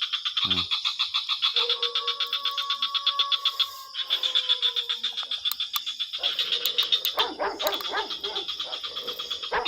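A dense chorus of frogs calling in fast, steady pulses. Over it a dog gives one long howl that sinks slightly at the end, then a run of shorter barks and yelps.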